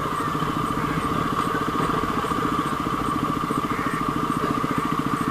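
KTM motorcycle engine running steadily at low revs, with an even, fast firing pulse.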